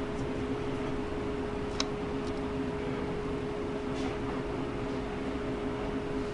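Steady machine-like hum with a constant mid-pitched tone over a light hiss; one faint tick about two seconds in.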